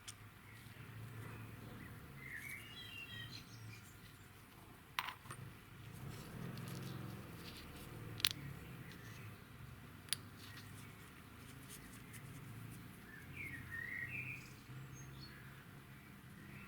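Three sharp taps or clicks, a few seconds apart, the second the loudest, over a low steady rumble. Birds chirp in the background, once early and once near the end.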